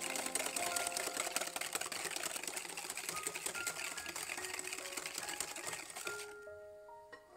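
Wire balloon whisk beating eggs and sugar in a glass bowl: a fast, steady clatter of the wires against the glass that stops abruptly near the end.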